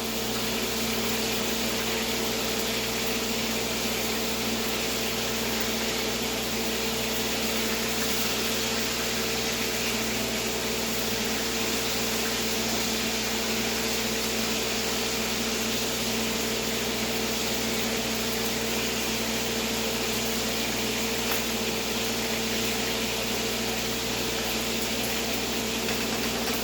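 Deer heart frying in a pan, sizzling steadily with fine crackling of popping fat, over a steady low hum.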